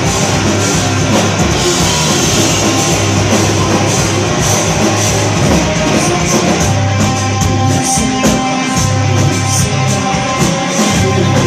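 A rock band playing live, loud: distorted electric guitars, bass and a drum kit with heavy cymbals, as heard through a phone or camera microphone in the crowd.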